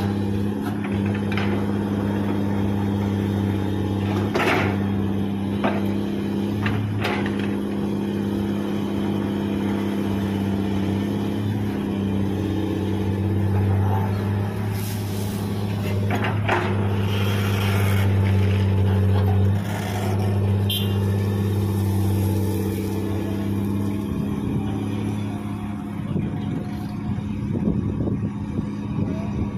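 Komatsu PC200 hydraulic excavator's diesel engine running steadily under load while it digs gravel, with scattered knocks and clatter of stones. The low engine hum drops away near the end.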